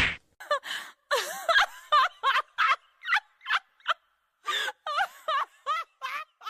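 A thump, then a quick run of short, high, warbling squeaky calls, about three a second, wavering up and down in pitch: a comic sound effect.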